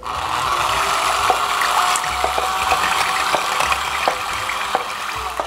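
Electric hand mixer running steadily, its beaters whisking a thin milk-and-egg mixture in a glass bowl with a churning, liquid sound and occasional light ticks. It runs for about five seconds, then cuts off.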